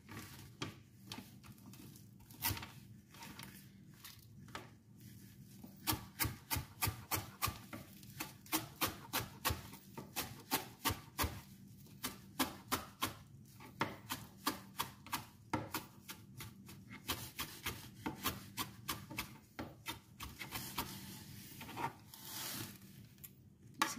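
Chef's knife chopping fresh parsley on a plastic cutting board: a long run of quick, sharp taps of the blade on the board, fastest through the middle at about three a second, more scattered at the start and near the end.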